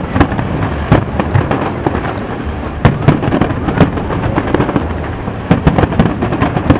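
Aerial fireworks shells bursting in quick succession: a dense run of booms and crackles over a continuous rumble, with the loudest bangs about three seconds in and a tight cluster of them from about five and a half seconds.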